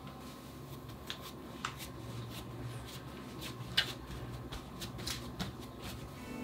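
Hands pressing risen bread dough flat on a countertop to knock the air out, the escaping gas giving irregular small pops and clicks.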